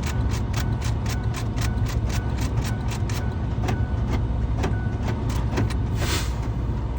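Ford F-350 Super Duty's 6.4 L Power Stroke diesel V8 idling steadily, with a regular sharp clicking over it, about three or four clicks a second, and a brief hiss near the end.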